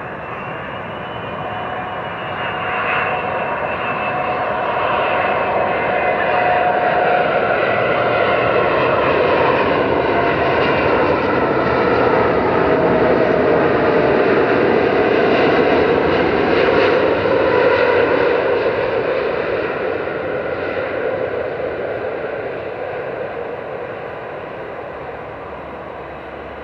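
Airbus A380-861's four Engine Alliance GP7200 turbofans at approach power as the airliner passes low overhead. The engine noise grows louder, holds, then fades, and its whine drops in pitch as the jet goes by.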